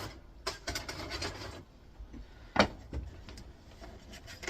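Parts of a plastic monitor casing being handled: a scraping rub for about a second, then a single sharp knock about two and a half seconds in, and a few light clicks.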